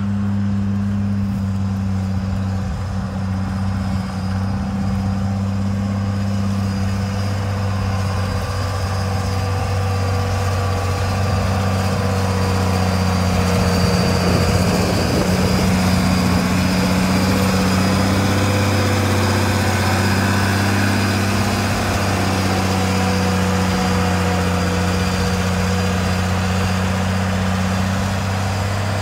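Huber-Warco motor grader's diesel engine running steadily under load as the blade cuts dirt. It grows louder about halfway through as the machine passes close, then eases off.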